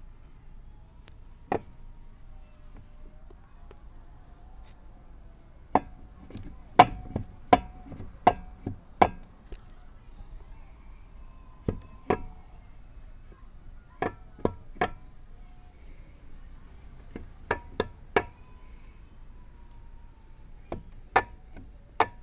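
Sharp knocks or taps in irregular groups of two to five, each group with the strikes about half a second apart and pauses of a few seconds between groups; no engine is running.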